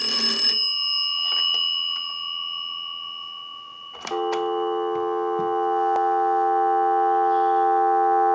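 The Kellogg wall telephone's twin ringer bells finish a ring burst and ring out, fading. About four seconds in, the receiver comes off the hook with a click and a steady North American dial tone comes on through the line amplifier.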